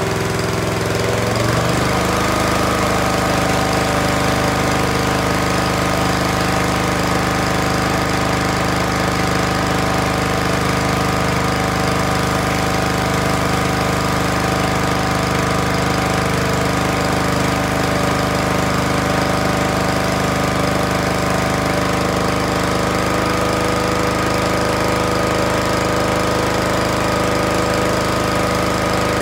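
Honda-engined Craftsman pressure washer running steadily while spraying. Its engine note rises in pitch about a second and a half in, then holds.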